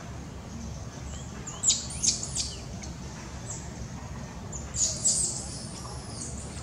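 Small birds chirping high and short in two clusters, one about two seconds in and one about five seconds in, over a faint low background hum.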